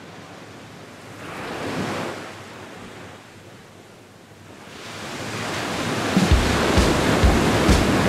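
Surf breaking on a beach: a wave swells and washes in about two seconds in, then the surf builds steadily louder. From about six seconds in, background music with a steady low beat, about two beats a second, comes in over the waves.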